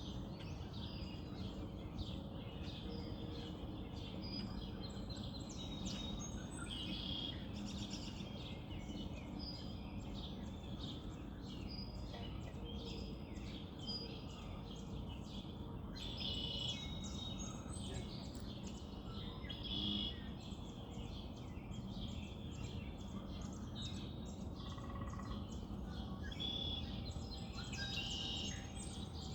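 Dawn chorus of several birds chirping and singing, many short calls overlapping, over a steady low background noise.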